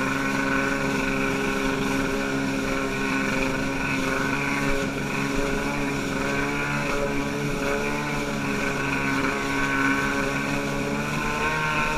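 Motorboat engine running at a steady pitch as the boat moves across choppy water, with water and wind rushing underneath.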